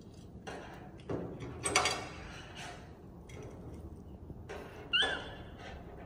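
A few scattered knocks and clatters of kitchen utensils and dishes being handled, the loudest near two seconds in. Just before five seconds one knock comes with a short high squeak.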